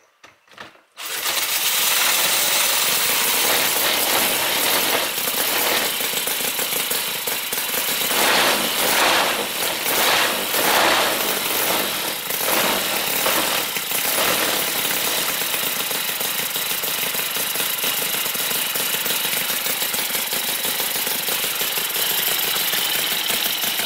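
Miniature Cison FG-9VT 45-degree V-twin four-stroke model engine, a Harley-Davidson Panhead replica, starting abruptly about a second in and running fast and loud. Its speed rises and falls a few times in the middle before it settles into a steady run.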